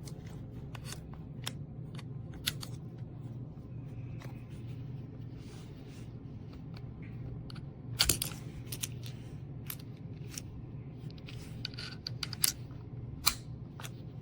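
Scattered small clicks and taps of handling, irregular, the loudest a few just after the middle and near the end, over a steady low hum.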